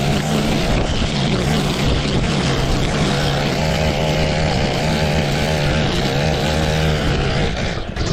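Small petrol engine of grass-cutting equipment running steadily under load, cutting thick wet grass.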